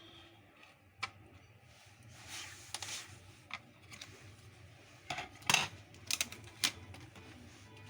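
Small hard parts being handled: scattered sharp clicks and knocks, the loudest cluster about five to seven seconds in, with short stretches of rubbing and a low steady hum underneath.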